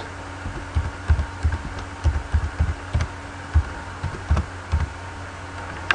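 Keystrokes on a computer keyboard as a command is typed: slow, irregular taps heard mostly as dull low thumps, over a steady electrical hum.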